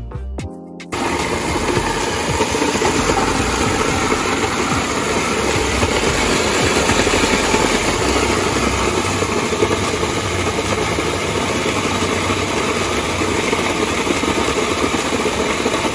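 Food processor motor running steadily, its blade puréeing quartered raw onions into a smooth mash; it starts about a second in, after a few short clicks.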